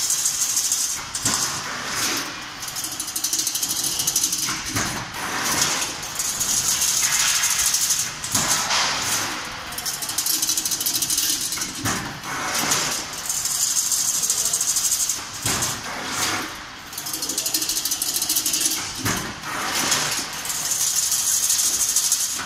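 A 4 m wide fully automatic single-wire chain link fence machine running as it weaves wire into diamond mesh. It makes a steady mechanical clatter and hiss that swells and dips every few seconds, with sharp clanks recurring through it.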